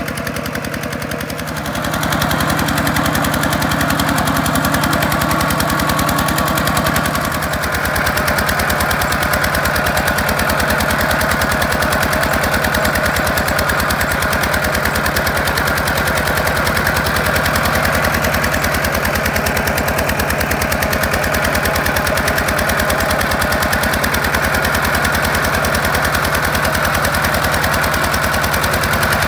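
Single-cylinder diesel engine of a two-wheel walking tractor running under load, a fast, even chugging as it pulls a loaded wooden trailer through mud and water. It gets louder about two seconds in.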